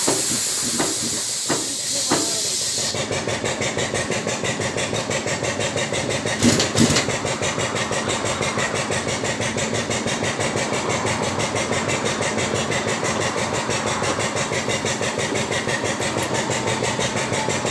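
Hissing with a few sharp clicks for about three seconds that cuts off suddenly, then the DeNZ hydraulic truck tyre changer's pump running with a fast, even pulsing. Two loud clunks sound about six and a half seconds in.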